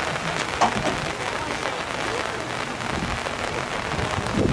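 Steady patter of rain, with many fine drop ticks. Faint voices of people nearby are heard under it.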